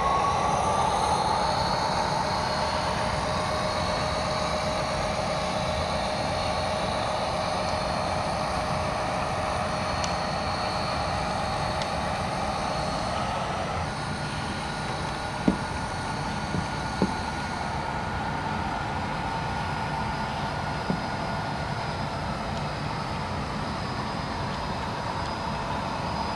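Sound-equipped HO scale model diesel locomotive running: a steady engine drone with held whining tones that shift in pitch about halfway through. A few light clicks follow soon after.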